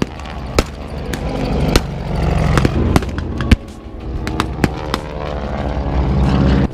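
Blank gunfire and pyrotechnic explosions from a staged battle reenactment: sharp single shots every second or so, the loudest about three and a half seconds in, over a steady low engine rumble.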